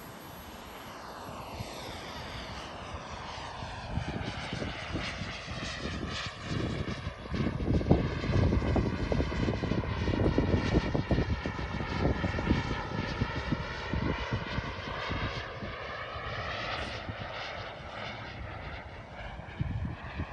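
Radio-controlled model jet's turbine engine in flight, passing by: it grows louder to a peak about halfway through and then fades again.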